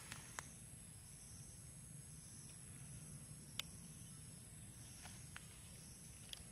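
Faint, near-silent outdoor ambience: a steady high-pitched insect drone, with a few small sharp ticks scattered through it.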